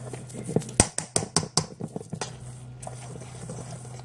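Dry mix of vital wheat gluten, oats and mushroom powder being stirred by hand in a metal mixing bowl: a run of light knocks and scrapes against the bowl in the first half, quieter after that. A steady low hum runs underneath.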